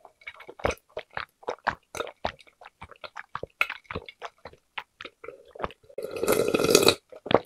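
Close-miked gulping as a person drinks from a glass: a steady run of swallows, about three a second. About six seconds in, the swallowing stops and is followed by a long, loud breath out.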